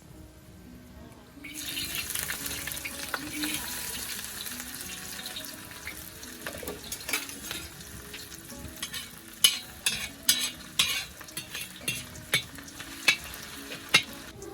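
Fish frying in hot oil in a metal pan, a steady sizzle that starts suddenly about one and a half seconds in. A metal spatula scrapes and knocks against the pan, with sharp clicks that come more often toward the end. Faint background music plays underneath.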